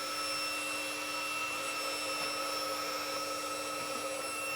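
Robot vacuum cleaner running: a steady motor whine with several fixed tones over an even hiss.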